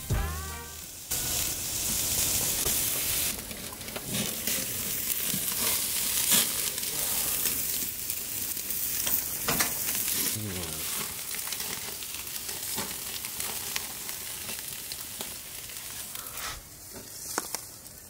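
Steaks sizzling on the grate of a propane grill: a steady crackling hiss that drops away near the end.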